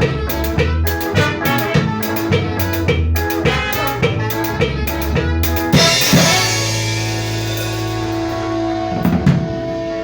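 A band rehearsing, with a drum kit keeping a steady beat over bass and sustained chords. About six seconds in the band stops on a long held chord with a cymbal crash. Near the end comes one last accented hit.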